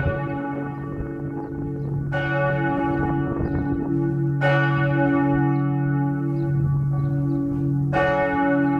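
Partial peal of three 1964 Otto church bells, tuned cis, fis and ais', swinging in a concrete tower: clapper strokes about two, four and a half and eight seconds in, each ringing on over a deep, lasting hum.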